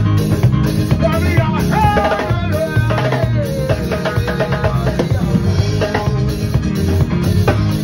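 Live band playing an upbeat song: a drum kit keeping a steady beat over bass guitar and keyboard.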